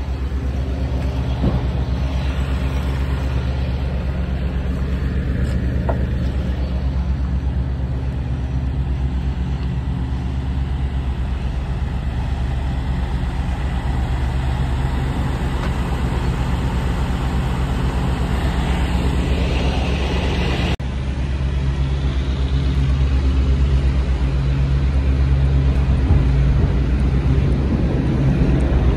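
Semi-truck's diesel engine idling: a steady low rumble that breaks off for an instant about two-thirds of the way through and then runs on slightly louder.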